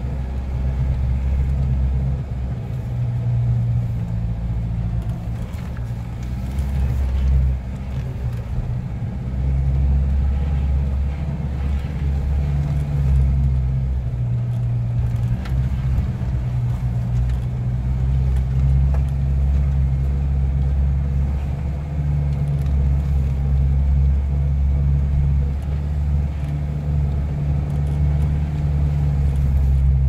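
Vehicle engine running with a steady low rumble, heard from inside the cabin while driving up a dirt mountain track under a load of long pipes. The drone eases briefly about a quarter of the way in.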